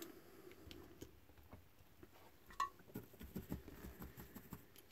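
Faint, scattered light clicks and taps of a small circuit board, its resistors just pushed in, being handled and set down, with a few slightly louder taps a little past halfway.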